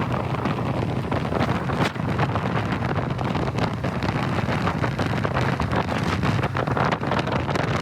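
Strong wind buffeting the microphone: a continuous rumble and hiss with frequent gusts.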